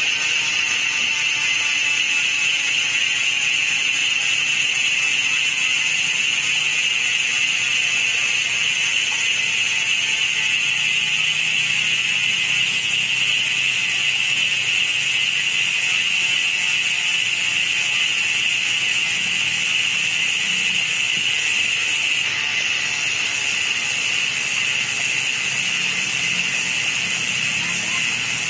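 Six-pawl freehub of a GUB bicycle rear hub buzzing as the wheel freewheels: a continuous high-pitched ratcheting buzz, its pitch sinking slightly as the wheel slows.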